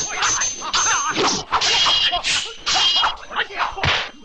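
Kung fu film fight sound effects: a rapid run of whacks and swishes, several with a metallic ring from clashing weapons.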